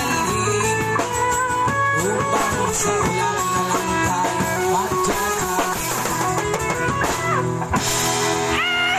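Instrumental music with guitar and drums, without singing.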